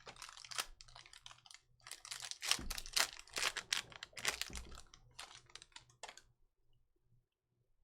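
A quick, irregular run of light clicks and taps for about six seconds, then it stops.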